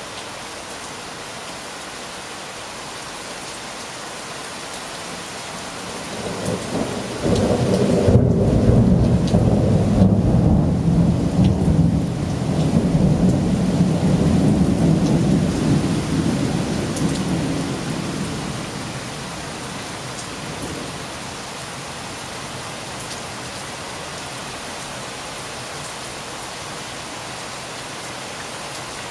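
Steady rain on surfaces, with a long peal of thunder that swells up about a quarter of the way in. It rumbles deep and loud for about ten seconds, then fades away, leaving only the rain.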